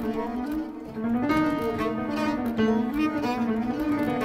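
Bass clarinet playing a low melodic line that wavers up and down in pitch, in contemporary chamber music; from about a second in, short sharp attacks join it.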